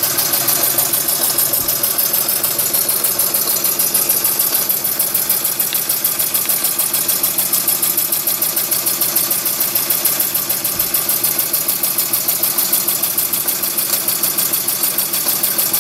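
1979 Jensen #50 model steam engine running steadily, warmed up, with a fast, even beat from its piston and flywheel over a steady hiss of steam.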